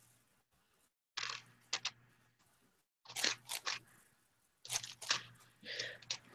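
Plastic 5x5 speed cube being turned by hand: rapid clicking and clacking layer turns in three short bursts, with silent gaps between them.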